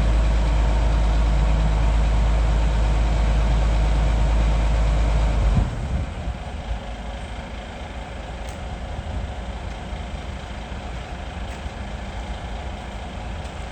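Heavy excavator diesel engine running steadily. It is loud and deep for the first five and a half seconds, then drops suddenly to a quieter, steady running.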